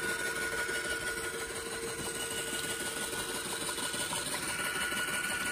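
Small motor-driven shaking sluice table running: its 35-watt motor and eccentric drive give a steady, fast mechanical chatter with a thin constant tone. Water pours steadily from the table's exit pipe and splashes into a plastic tailings tub.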